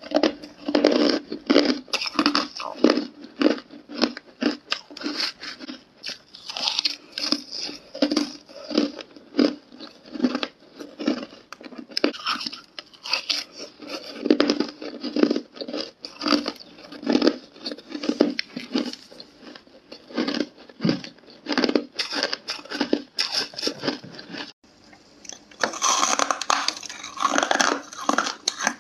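Close-miked crunching of hard ice being bitten and chewed, in rapid, dense crunches. After a brief break near the end, a brighter, crisper crunching starts as a block of freezer frost is bitten.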